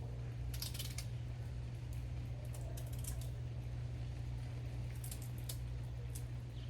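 A knife cutting and scraping cassava: a string of short, irregular scrapes and clicks, over a steady low hum.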